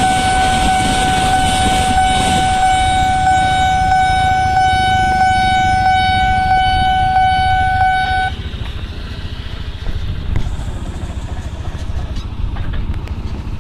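Railway level-crossing warning signal sounding one continuous electronic tone that cuts off suddenly about eight seconds in, as the crossing clears after a passing train. Motorcycle and road-traffic engine noise continues underneath and after it.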